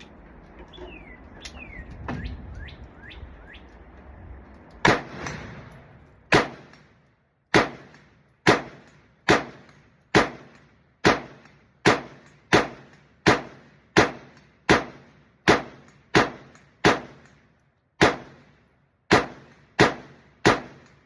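Airsoft ARP rifle fired in semi-auto, about twenty sharp single shots in a steady rhythm of roughly one every three-quarters of a second, starting about five seconds in. Before the shooting, birds chirp with short falling calls.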